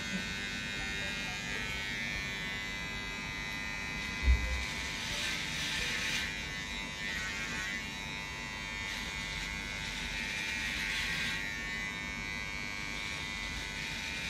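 Cordless electric hair clippers buzzing steadily while trimming short hair at the back and sides of a man's head. The buzz grows rougher for a couple of stretches in the middle, and there is one soft thump about four seconds in.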